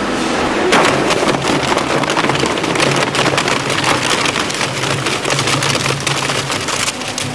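Grupo SPR RS 85 twin-shaft shear shredder tearing cardboard and paper between its counter-rotating hooked cutter discs: a dense crackling and ripping over a steady low machine hum. The crackle starts about a second in and eases off near the end.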